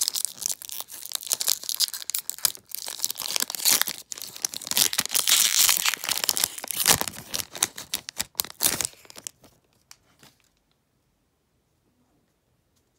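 Pokémon TCG booster pack's foil wrapper being torn open and crinkled: a dense crackle of tearing and crumpling that stops about nine seconds in.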